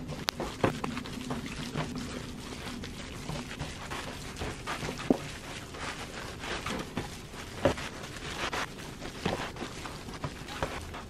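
Gloved hands kneading and squishing a mass of ground raw chicken in an aluminium foil pan: irregular wet squelches and squishes, with a few sharper crackles scattered through.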